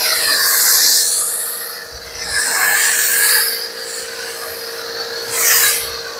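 Pressure washer foam cannon spraying thick foam onto a car's body panels: a loud hiss that swells three times as the spray sweeps across, over a steady hum.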